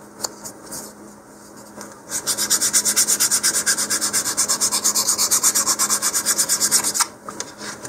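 Sandpaper on an Apogee sanding tee rubbing along the edge of a wooden model-rocket fin in rapid, even strokes. The strokes start about two seconds in and stop around seven seconds. The edge is being sanded round to an even cross-section.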